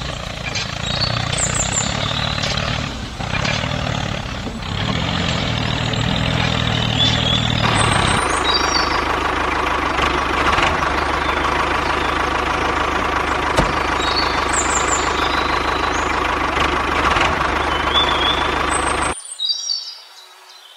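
Tractor engine sound running steadily, changing its note about eight seconds in and cutting off abruptly near the end, laid over toy tractors that make no such sound themselves.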